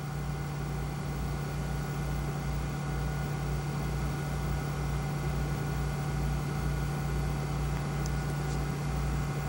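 Steady machine hum with a background hiss and a low, evenly pulsing throb, unchanging throughout.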